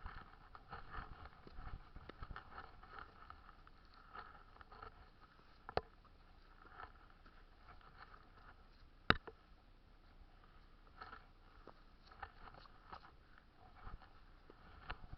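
Faint scuffing and scraping of shoes and hands on sandstone rock during a steep scramble, with two sharp knocks about six and nine seconds in, the second the louder.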